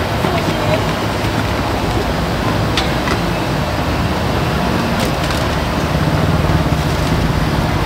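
Steady, loud background noise of a busy street market, with a few light clicks about three and five seconds in.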